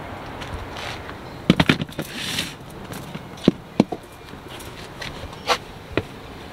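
Clear plastic storage bins being handled and set down: a handful of sharp plastic knocks and clacks, a quick cluster of them about one and a half seconds in, a short scrape just after, then single knocks spread through the rest.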